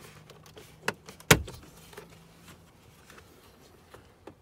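A Toyota Tundra's plastic lower dash switch panel pried out by hand: a soft click, then one loud sharp snap about a second in as its retaining clips let go, followed by a few light plastic clicks.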